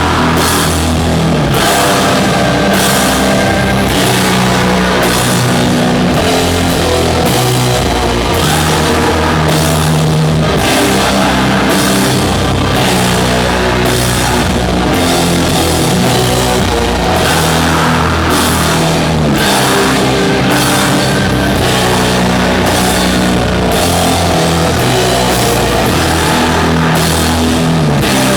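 Doom metal band playing live: heavy, sustained guitar and bass chords over a slow drum beat, with a drum and cymbal stroke about once a second.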